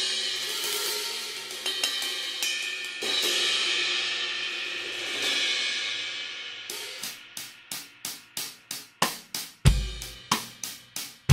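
Istanbul Mehmet Samatya cymbals: crashes struck a few times and left ringing in a long wash, then a steady hi-hat beat of about three strokes a second, with kick drum joining near the end.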